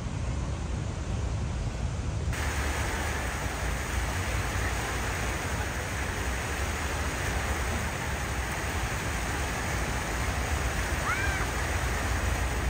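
Fountain jets splashing steadily into a pool, a continuous rush of water that comes in abruptly about two seconds in over a low city traffic rumble. A brief chirp sounds near the end.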